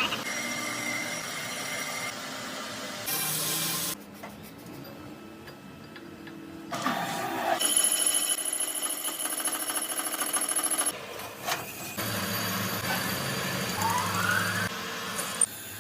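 Workshop machinery sounds, cut together from several short segments: steady high-pitched whines, stretches of harsh noise, and a rising whine near the end.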